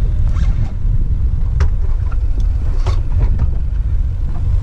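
Mercury outboard motor idling with a steady low rumble, with a few faint clicks on top.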